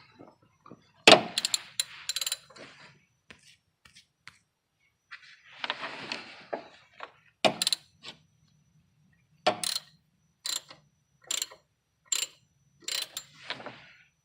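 Ratchet wrench working loose an alternator mounting bolt: sharp metallic clicks and knocks, a loud cluster about a second in, then single clicks roughly a second apart in the second half.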